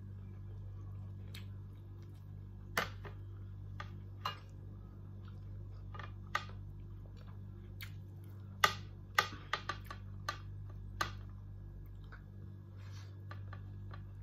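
Irregular sharp clicks and cracks of shrimp being eaten by hand, shells cracked and peeled and mouthfuls chewed, bunched most thickly about nine seconds in, over a steady low hum.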